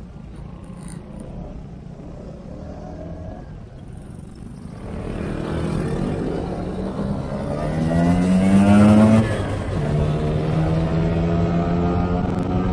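Vespa scooter engine pulling away: a low hum at first, then louder, its pitch rising as it accelerates, dropping about nine seconds in, then holding steady at cruising speed. Wind and road noise rush along with it once it gets moving.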